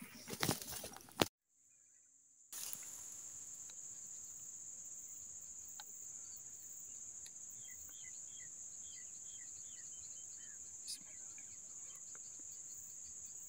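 Steady high-pitched drone of insects, with a run of short faint chirps about halfway through. It begins after a brief busy noise ending in a click and a second of silence.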